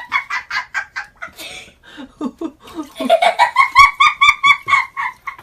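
A baby laughing in quick, rhythmic repeated 'ha' sounds, once at the start and again in a longer run from about three seconds in.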